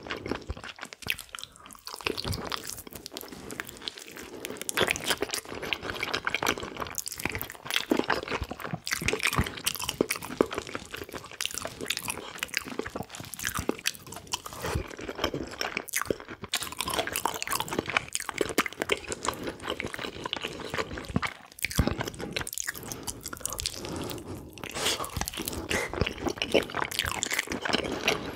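Close-miked chewing and biting as spicy pig's trotters are eaten, with a dense run of small crunches and wet clicks throughout and a few brief pauses.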